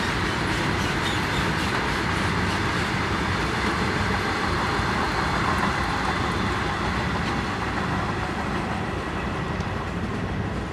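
Freight train of BCNA covered wagons rolling past on the rails: a steady rumble of the wheels, easing off slightly near the end.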